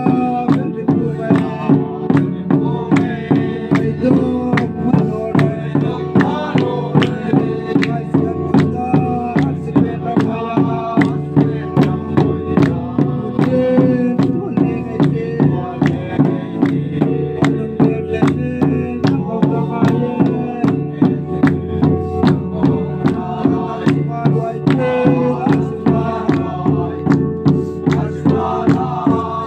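Group song led by a man singing through a microphone, over hand-beaten drums keeping a steady beat of about two strokes a second, with hand-clapping.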